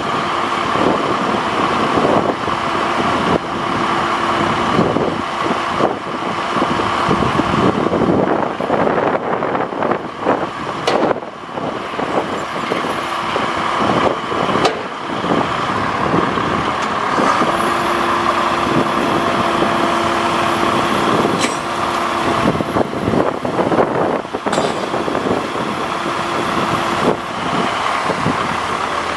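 Diesel truck engine, an International DT466, running steadily to drive the Altec aerial's hydraulics while the boom is lowered and folded down. A steady whine comes and goes several times as the boom moves.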